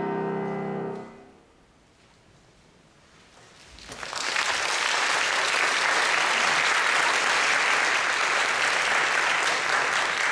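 Grand piano's final chord sounding, then released about a second in. After a pause of about three seconds, an audience starts applauding at about four seconds in and keeps clapping steadily.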